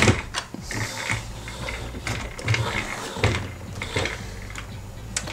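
Hard plastic toy airplane being handled and turned on a tabletop: irregular clicks and knocks of plastic parts and wheels.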